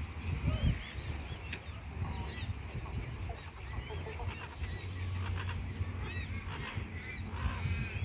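Ducks quacking and calling, with other birds chirping, over a steady low rumble.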